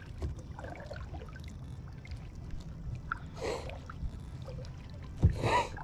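Water trickling and lightly splashing around a kayak over a low steady rumble, with two short, louder sounds about three and a half and five and a half seconds in.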